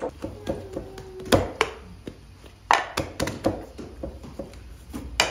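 Flatbread dough being pressed by hand and punched with a bread stamp on a wooden board: a handful of dull knocks and taps at irregular intervals, in a small room.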